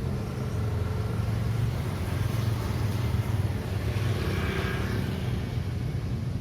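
City street traffic: cars and motorbikes running past in a steady low rumble, with one vehicle passing louder about four seconds in.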